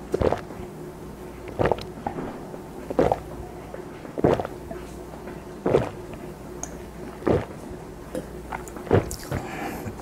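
A person gulping down a drink in long draughts: seven separate swallows, one about every second and a half.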